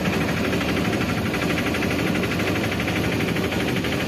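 Steady, loud rushing roar of wind on the microphone and water pouring through the open gates of the dam below.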